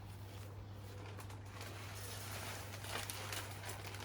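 Sunflower seeds being poured out for bird feeders, a soft rustling patter that comes mostly in the second half, over a steady low hum.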